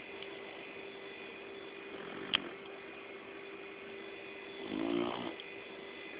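Labrador retriever snoring in its sleep: a faint snore about two seconds in, with a sharp click in it, then a louder snore near the five-second mark. A steady hum runs underneath.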